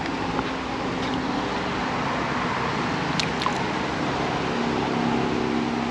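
Steady rush of flowing creek water, with a few light clicks about three seconds in.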